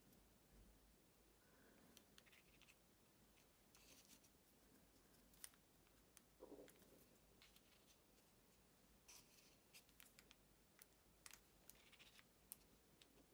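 Near silence, with faint scattered ticks and brief rustles of small paper butterflies and a glue bottle being handled as they are pressed onto a card.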